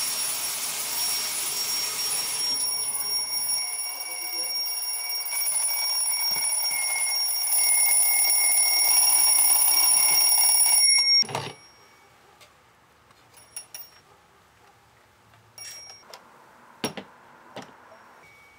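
Alarm clock ringing with a steady high-pitched tone, over a hiss at first and growing louder, then cut off with a knock about eleven seconds in. A few faint clicks and knocks follow in the quiet.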